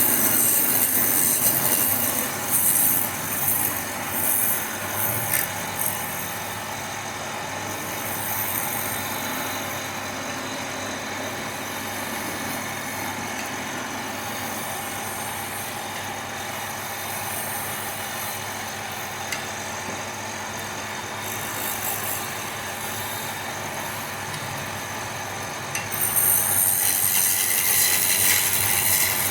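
Wood lathe motor running steadily, with a turning tool cutting the spinning wood in stretches: a hissing, scraping cut at the start, again in the middle, and loudest near the end, with plain motor hum between cuts.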